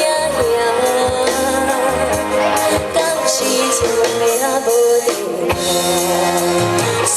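Live band music from a Mandarin pop song: a held melody line over bass notes.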